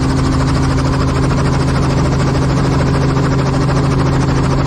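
Small helicopter's engine and main rotor running while it sits on the ground, heard from inside the cabin: a loud, steady drone with a fast, even beat from the rotor.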